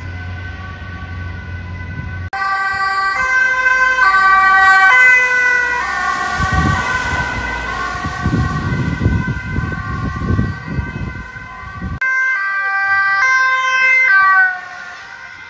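Ambulance sirens sounding the alternating two-tone, high and low notes switching under a second apart, over engine and road noise, in several clips cut together with abrupt changes. Near the end, the pitch drops slightly and the siren fades as one ambulance passes.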